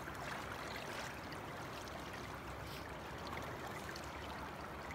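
Steady rush of running river water, an even hiss with no distinct events.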